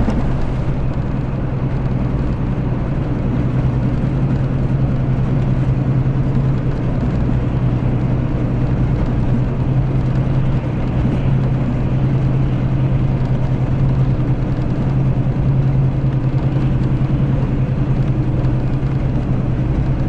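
Mercedes-Benz O-500RS coach's diesel engine running at a steady pace, heard from inside the passenger cabin as a loud, even low drone.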